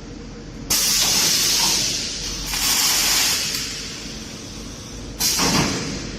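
Ringlock standard automatic welding machine running through its cycle: three loud bursts of hissing, each starting suddenly and lasting about a second, the last opening with a thud.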